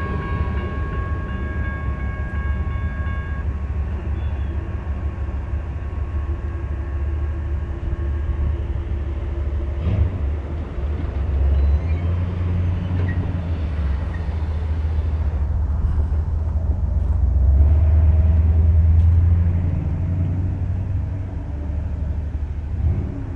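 BNSF freight train's last cars rolling past a grade crossing, a low rumble with a few steady high tones that fade out within the first few seconds. A steady low rumble carries on after, swelling louder for a few seconds near the end.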